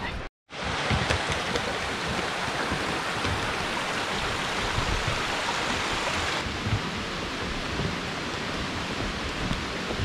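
Steady rush of a rocky mountain stream, after a brief dropout about half a second in; the sound turns a little duller a little past halfway.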